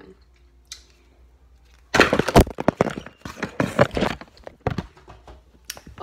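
A burst of loud knocks, clatter and rubbing right at the microphone, starting about two seconds in and lasting a couple of seconds, then a few scattered knocks: something fumbled or knocked about in a mishap.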